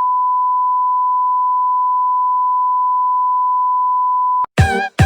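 A steady, unwavering electronic beep tone held for about four and a half seconds, then cut off abruptly as music begins with two short, loud, repeated stabs.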